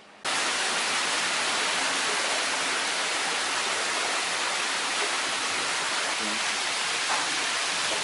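Steady rush of seawater bubbling and splashing in aerated live-fish tanks, which starts abruptly just after the beginning.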